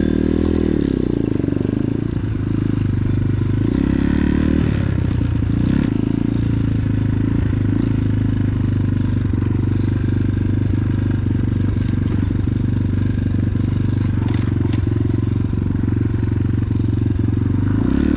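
X-Pro Titan 250cc dirt bike's single-cylinder four-stroke engine revving up as the bike pulls away, rising again about four seconds in as it picks up speed, then running steadily while riding the trail.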